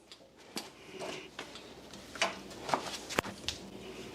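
A jack being worked to lift a Bridgeport milling machine base: a string of sharp, irregular clicks and knocks, roughly one to two a second.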